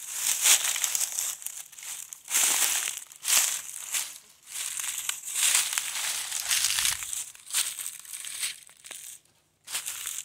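Footsteps crunching through dead leaves on the forest floor, irregular steps every second or two as someone climbs a steep slope.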